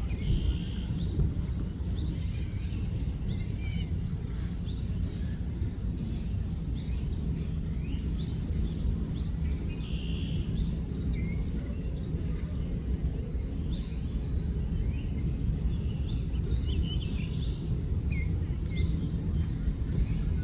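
Several small birds chirping and calling over a steady low background rumble, with sharper, louder chirps near the start, about halfway through and twice near the end.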